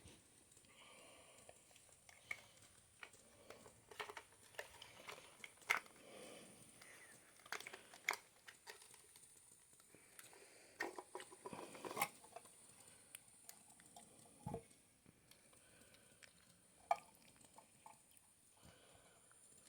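Faint, scattered clicks, taps and light knocks of small hard objects being handled, with a little rustling in between; a few sharper taps stand out.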